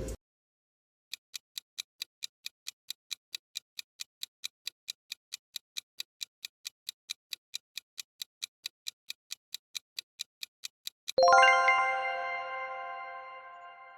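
Quiz countdown timer sound effect: sharp clock-like ticks about four times a second for roughly ten seconds, then a bright bell-like chime that rings and slowly fades, marking time up.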